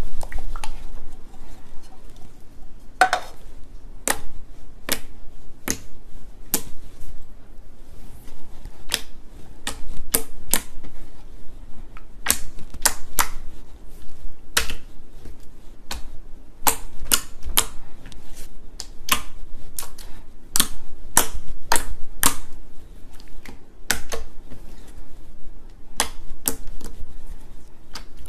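Thick pink slime being pressed and poked with fingers, giving sharp clicks and pops at irregular intervals, about one or two a second.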